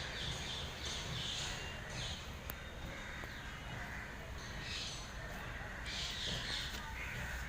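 Crows cawing, a string of short calls spread through, over a steady low background rumble.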